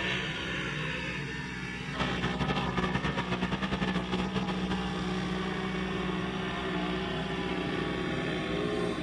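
A side-by-side UTV's engine running hard under load as it climbs a sand dune at wide-open throttle, a steady drone. About two seconds in it gets louder and pulses rapidly for a couple of seconds, then settles back to a steady drone.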